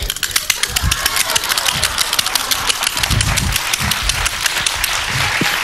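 Improvised machine-gun-fire sound effect: a fast, continuous clatter of sharp clicks, about ten a second, with a few irregular low thumps.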